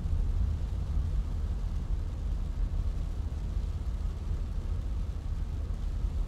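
Inside a car driving in the rain: a steady deep rumble of road and engine, with an even hiss above it.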